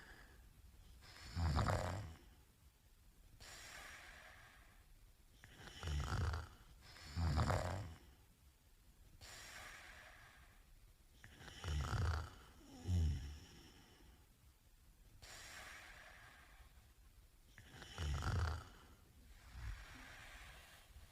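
A sleeping man snoring: loud, low snores that come mostly in pairs about every five to six seconds, with quieter breathing between them.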